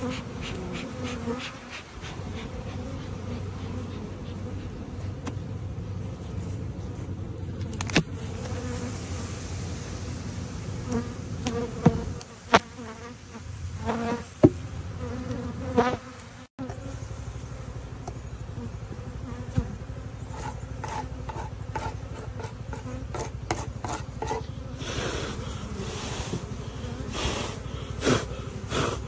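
Honey bee colony buzzing in a steady hum over open hive boxes, with a few sharp clicks scattered through.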